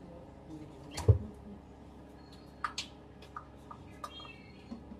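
Kitchen handling sounds: one dull thump about a second in, then scattered light clicks and taps of a knife and dishes, with a few faint high squeaks near the end.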